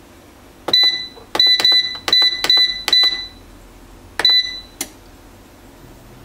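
2017 Cook's Essentials air fryer's control panel beeping once per button press as the temperature and cooking time are set. There is one beep, then a quick run of several, then one more beep about four seconds in, followed by a single click.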